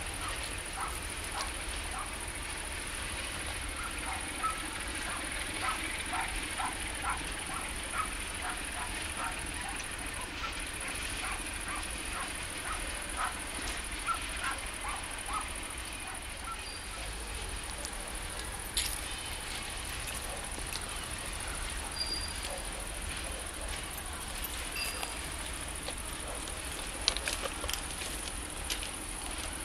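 Crickets chirping steadily and high-pitched over the low rumble of a freight train headed by an Electroputere LDE 060-DA diesel locomotive as it moves slowly away. Wheels click over rail joints about twice a second, fading out about halfway through.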